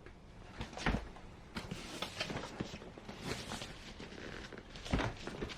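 A cardboard kit box being handled and turned over on a surface: rustling and scraping, with a heavier thump about a second in and another near the end.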